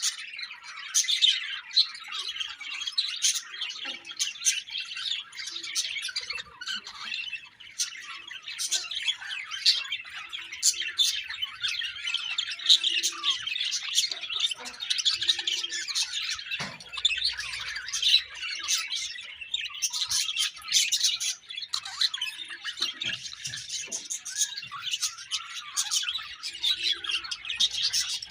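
A colony of budgerigars chattering together: dense, continuous warbling and chirping from many birds at once, with frequent sharp squawks.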